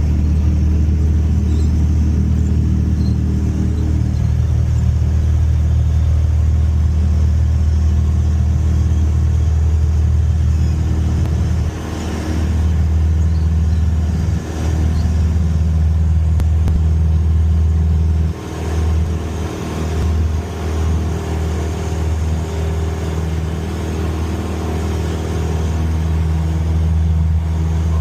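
Light airplane's piston engine and propeller running at high power during a soft-field takeoff, a steady low drone. The level dips briefly a few times in the middle and wavers more unevenly after that.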